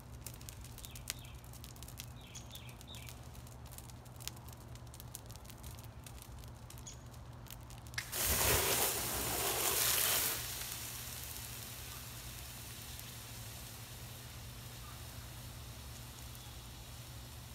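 A burning rubber basketball crackles faintly. About eight seconds in, a sudden loud hiss of water dousing the flames lasts about two seconds, then settles into a softer steam hiss that slowly fades.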